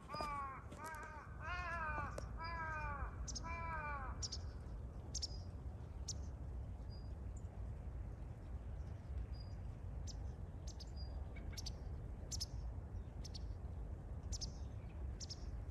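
A crow cawing, a run of about six harsh falling caws about half a second apart in the first four seconds. Short high chirps of small birds come now and then, over a steady low rumble.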